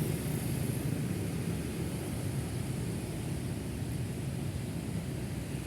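Steady low rumble of busy city road traffic, with no single vehicle standing out; the hiss of a passing vehicle fades away in the first second.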